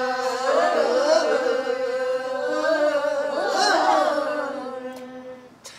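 Pansori singing: one long, drawn-out note on the lament line "잠 안 오는" (sleepless), shaken and bent in pitch. It swells up to a peak about three and a half seconds in, then falls away and fades out near the end.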